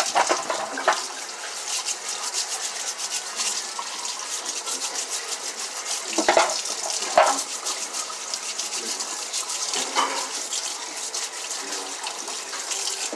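Tap water running into a stainless steel sink while plant roots are scrubbed under the stream with a stiff plastic brush, with rapid scratchy brushing strokes. There are a few knocks partway through, about six, seven and ten seconds in.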